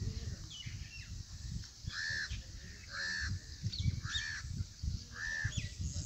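A bird calls four times, each a short arched note about a second apart, with fainter higher chirps from other birds, over a low rumble.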